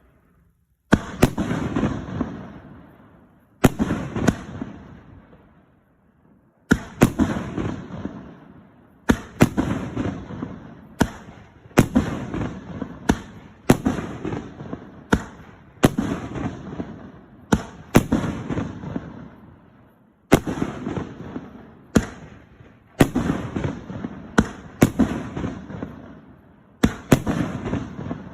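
A 25-shot cake firework firing its shots one after another: a sharp bang every second or so, each trailing off over a second or two. The first shot comes about a second in, with a longer pause a few seconds later.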